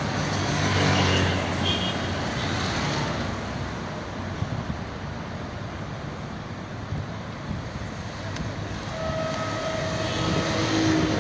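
Road traffic: a motor vehicle's engine passes in the first few seconds over steady traffic noise, and a held steady tone sounds for a second or two near the end.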